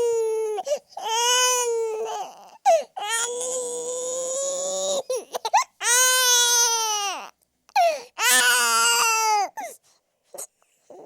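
Baby boy crying intensely: about five long wailing cries of a second or two each, every one dropping in pitch at its end, with short catches of breath between. The crying stops about ten seconds in.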